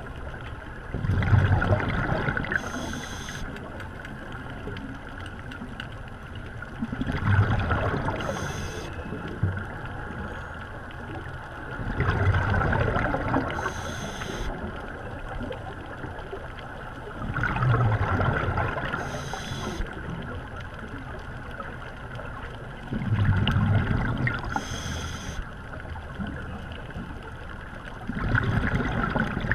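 Scuba diver breathing through a regulator underwater: about every five and a half seconds a loud gurgling rush of exhaled bubbles, each followed by a short hiss of the next inhale, six breaths in all.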